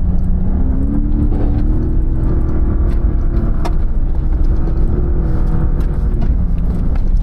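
Ford Raptor pickup driving, its engine note rising about a second and a half in and then holding steady over a heavy low rumble, easing off near the end.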